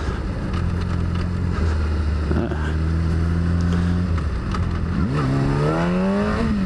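Motorcycle engine running under way, a low steady note with wind and road noise, then rising in pitch about five seconds in as the bike accelerates.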